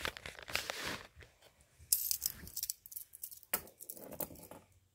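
Metal handcuffs being handled, the cuffs and chain rattling and clinking in short bursts, with a few light clicks.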